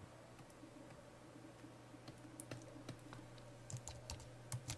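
Faint computer keyboard keys clicking, scattered single presses with a few more close together near the end, over a low steady hum.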